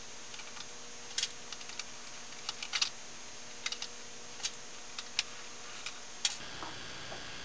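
Small screwdriver turning out the tiny screws that hold a laptop LCD panel in its frame: light, irregular metallic clicks and ticks as the tip works each screw loose.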